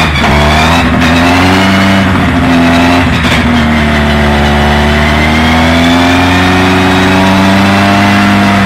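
Skoda Fabia rally car's engine held at raised revs to warm it up, its pitch wandering slowly down and up with a few brief dips in the throttle.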